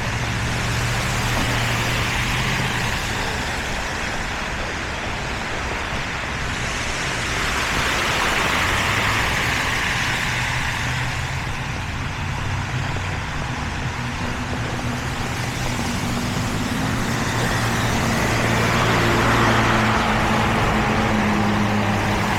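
Street traffic on a snowy road: cars passing one after another, their tyres hissing on wet snow in three swells, over a low engine hum. The hum of a heavier vehicle builds near the end.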